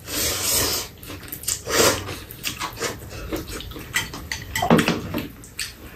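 Glass noodles (dangmyeon) being slurped loudly for about the first second, followed by eating noises and many light clicks of chopsticks and spoons against bowls.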